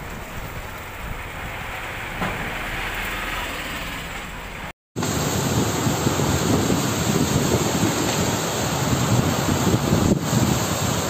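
Gusty storm wind blowing against the microphone. About halfway it gives way to louder, steady heavy rain pouring down in strong wind, typical of a sudden convective thunderstorm downpour.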